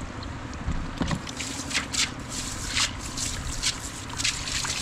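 Wet splashes and rustling in irregular bursts as fish are worked out of a cast net on a water-covered road, over a steady low rumble.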